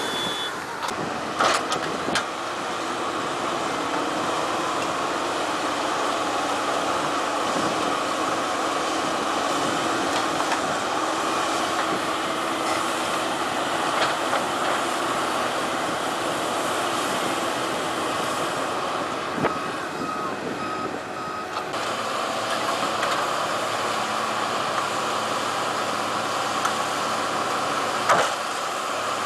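Heavy construction machinery running steadily, with a few sharp knocks and a short run of beeps a little past two-thirds of the way through.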